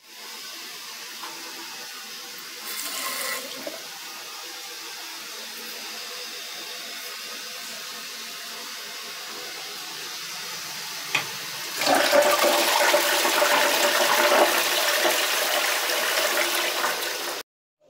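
A toilet with a wall-mounted plastic cistern flushing: a click about eleven seconds in, then a loud rush of water through the bowl for about five seconds, cut off abruptly. Before that, a quieter steady hiss.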